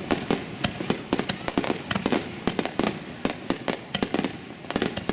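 Aerial firework shells bursting overhead in quick succession: a dense, uneven run of sharp bangs and crackles, several each second.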